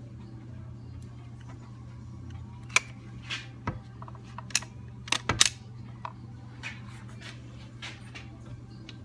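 A handful of sharp clicks and knocks, bunched between about three and five and a half seconds in, from handling a two-part epoxy cartridge dispensing gun against a small-engine crankcase while laying in the adhesive, over a steady low hum.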